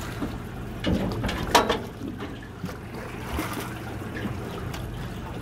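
Water lapping and trickling against the hull of a small aluminium boat, with a steady low hum underneath. A few sharp splashes or knocks come close together between one and two seconds in, with a brief wash of water a little later.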